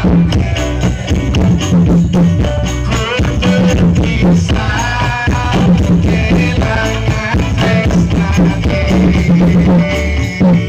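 Loud music with a steady drum and percussion beat, played through the stage sound system.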